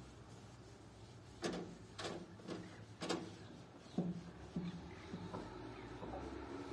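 A run of about eight irregular knocks and clunks, starting about a second and a half in and dying away near the end, over a faint steady background.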